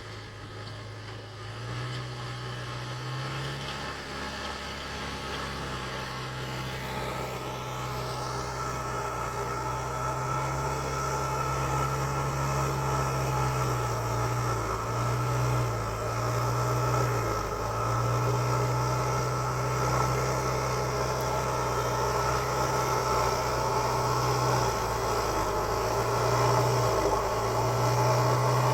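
JCB 3DX backhoe loader's diesel engine running steadily, its pitch dipping briefly several times as it takes load, growing gradually louder.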